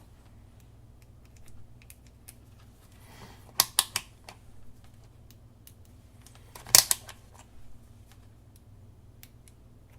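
Scattered sharp clicks and taps from handling a multimeter and its test probes, the loudest a quick pair about three and a half seconds in and a cluster near seven seconds. No continuity beep comes, as this meter has no buzzer.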